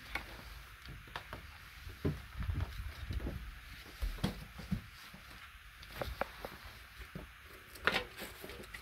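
Footsteps and camera handling noise from someone walking with the camera: irregular light knocks and low thumps over a steady hiss.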